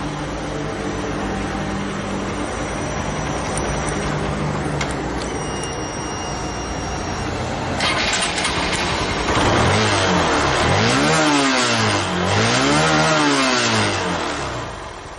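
Honda Mega Pro FI's single-cylinder engine running steadily, then blipped up and down several times after about nine seconds before settling back. It is being test-revved after its loose throttle position sensor was shimmed with aluminium foil.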